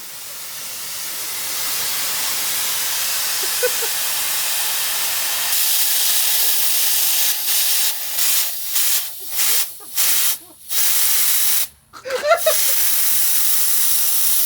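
Compressed air hissing out of the air compressor's tank as it is drained to empty. A steady high hiss that builds over the first couple of seconds; past the middle it cuts out and comes back several times, then runs on steadily.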